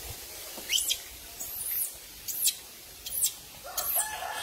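An animal's shrill, very high-pitched calls: five short cries, each a quick rise and fall in pitch, spaced under a second apart. A lower call joins near the end.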